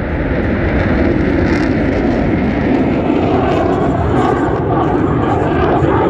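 Jet engine noise from a Black Eagles T-50B aerobatic jet flying overhead: a loud, steady rushing roar.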